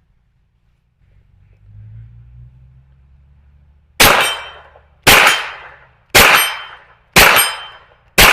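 Five 9mm shots from a Smith & Wesson FPC carbine, starting about four seconds in and fired steadily about one a second. Each shot is followed by a short ringing tail, typical of hits on a steel target.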